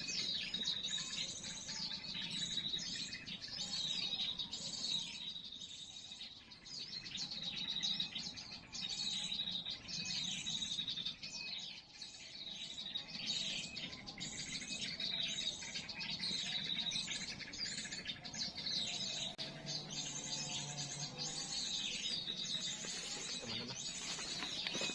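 Small songbirds chirping: high calls repeated over and over, densely and without a break.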